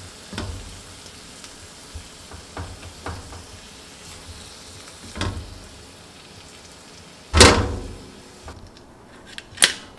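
Oil in a frying pan with the heat just turned off, sizzling faintly and dying away near the end. Over it, light clicks and taps of chopsticks and bamboo skewers against the pan and a steel plate as grilled rice-cake skewers are lifted out, with one louder clatter about seven and a half seconds in.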